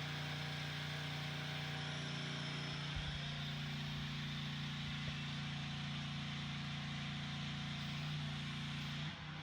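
An engine running steadily at constant speed, a low hum with a hiss over it that stops about nine seconds in.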